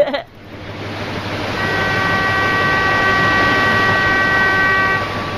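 Boat cutting through the sea: a steady wash of water and engine noise that fades in at the start. From about a second and a half in until near the end, a chord of steady high tones is held above it.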